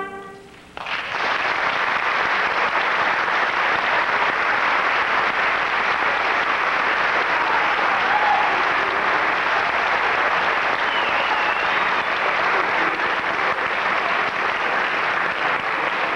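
Audience applause breaks out suddenly just under a second in, once the last trumpet note has died away in the hall, and carries on steadily.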